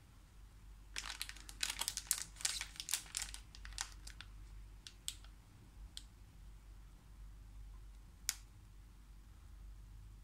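Plastic chocolate-bar wrapper crinkling in the hands as it is turned over. There is a dense run of crackles starting about a second in and lasting some three seconds, then a few single crackles.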